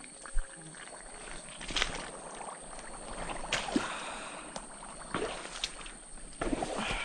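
Footsteps squelching and splashing through wet mud and shallow water, in uneven steps.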